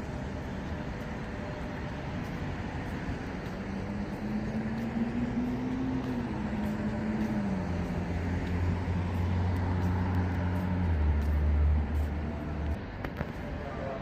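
Road traffic on a city street, with a passing vehicle's low engine hum that rises and falls in pitch, grows loudest about twelve seconds in and cuts off shortly after.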